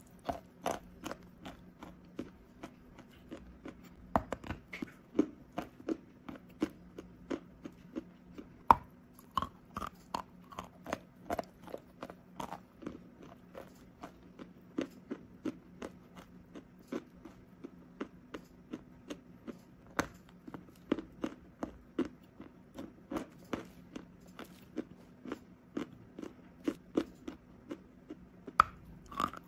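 Close-miked crunching of a lump of white chalk being bitten and chewed, a steady run of sharp, crisp crunches about two a second.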